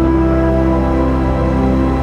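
Background music: slow, sustained chords over a steady low drone, with no beat.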